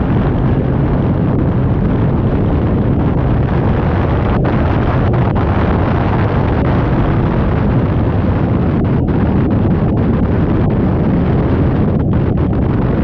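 Twin big-block engines of a 1997 29-foot Fountain step-hull powerboat running hard at cruising speed: a loud, steady, deep drone, with wind buffeting the microphone and water rushing past the hull.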